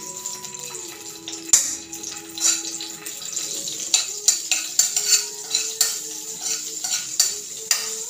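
Spoon stirring melting butter in a nonstick pan: a series of sharp clinks and scrapes against the pan, more frequent in the second half, over a steady faint sizzle.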